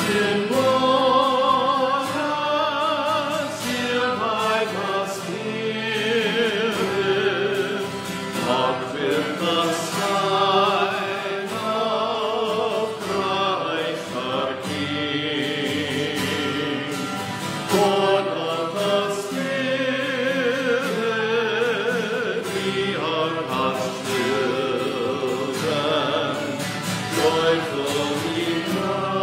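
A slow sung hymn or liturgical chant: a voice holding long notes with vibrato.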